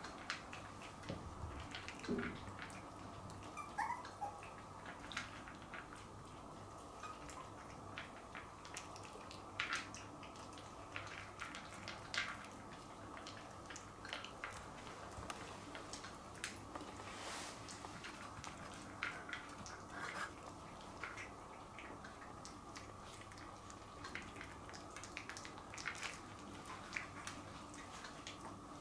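Yorkshire terrier puppies eating dry kibble from a plastic bowl: faint, irregular small crunches and clicks.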